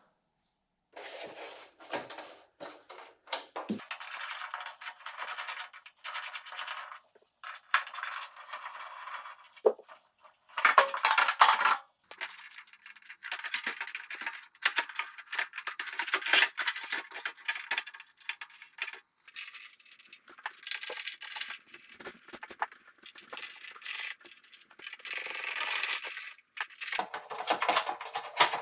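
Metal clinks and clatter of hand tools and door hardware as a car door is taken apart, in short choppy stretches that start and stop abruptly.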